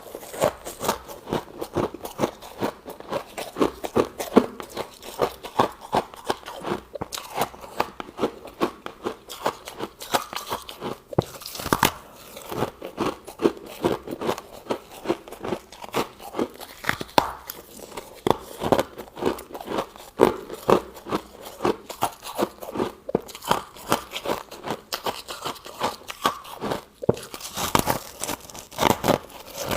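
Close-up crunching of freezer frost being bitten and chewed: rapid crisp crunches, several a second, with louder crunches about twelve seconds in and near the end.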